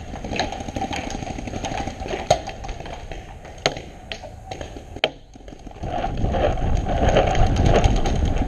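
Scattered sharp pops of paintball markers firing during a game, over a steady rustle of movement; a louder low rumble builds about six seconds in.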